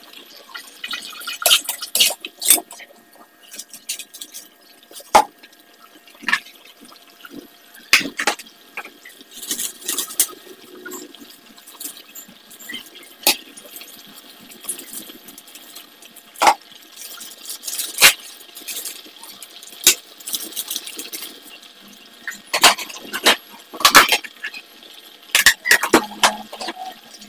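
Coconut milk and beef simmering in a wok, bubbling with irregular sharp pops and spits over a faint hiss.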